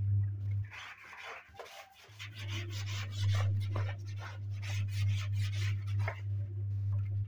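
Brush scrubbing a soapy, wet suit jacket in quick repeated strokes, with a short pause about a second in. A steady low hum runs underneath.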